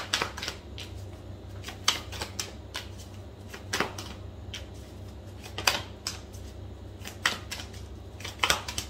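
Tarot cards being handled on a table: irregular light taps and flicks as cards are picked up, turned and laid down, over a low steady hum.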